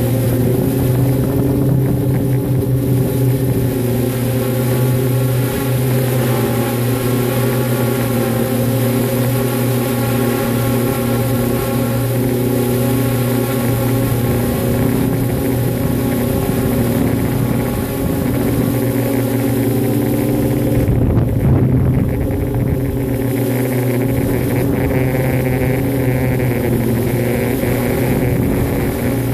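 Drone's electric motors and propellers running in flight, a loud steady hum whose pitch wavers slightly as the speed changes, heard close up from the phone carried on the drone. A brief louder rush comes about two-thirds of the way through.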